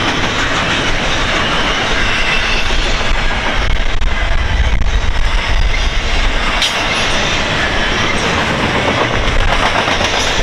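A long CN intermodal freight train of well cars rolling past at speed. The wheels make a steady heavy rumble and clatter over the rails, with one sharp clack about two thirds of the way through.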